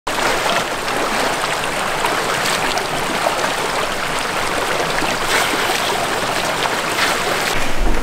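Steady rushing of running water.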